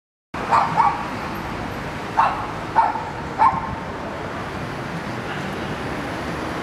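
A dog barks five short times in the first three and a half seconds, over a steady hum of city street noise.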